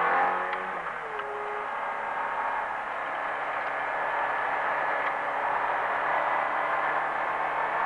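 Sports car engine heard from inside the cabin on a track lap: the climbing revs break off just after the start, the engine drops back, then it runs steadily at lower revs through a bend under a rushing haze of road and wind noise.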